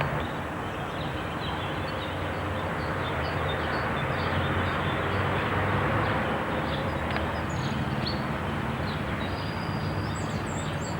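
Small birds chirping and twittering over a steady rushing background noise with a low hum beneath it.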